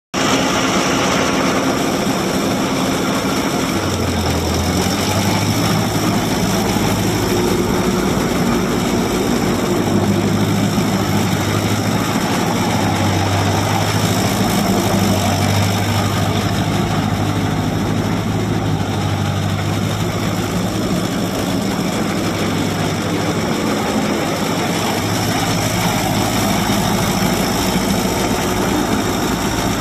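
Ferguson TO-30 tractor's Continental gasoline engine running steadily as the tractor is driven, its pitch stepping up a little about four seconds in.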